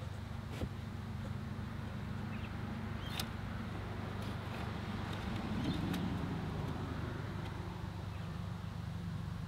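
Light knocks and clicks of wooden panels being handled while a flat-pack A-frame chicken coop is assembled, about three sharp ones, over a steady low outdoor rumble; faint bird chirps now and then.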